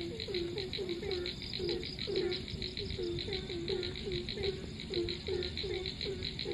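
A chorus of frogs calling after rain: many short, low croaks overlapping one another, several a second. A fast, higher pulsing chirr runs steadily underneath.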